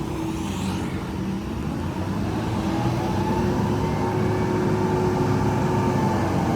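A construction vehicle's engine running steadily, with a whine that rises slowly and falls back near the end.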